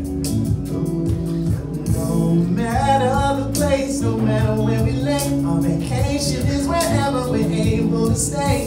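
An R&B song with a male voice singing over a steady beat and sustained bass.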